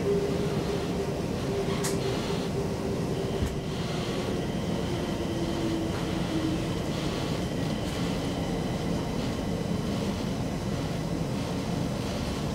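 Stockholm Metro C20 train heard from inside the carriage, rumbling along the track with a motor whine that sinks slightly in pitch about halfway through as it slows into a station.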